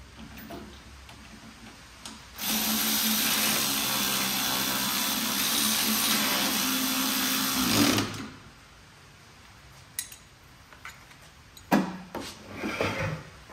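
Pneumatic air ratchet running steadily for about five and a half seconds, backing a bolt out of a VW Beetle engine. Near the end come a few sharp metal clinks as the tool and socket are handled.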